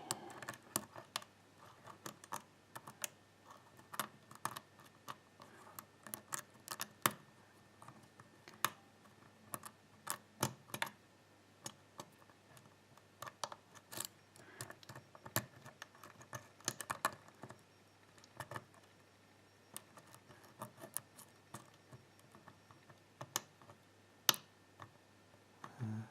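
Irregular small metallic clicks and light scratches of a hook pick and pry-bar tension tool working the pins of a pin-tumbler lock with spool pins, as single pins are lifted and set.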